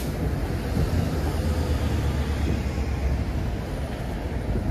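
Steady low rumble of a passing vehicle, heaviest through the middle and easing off near the end.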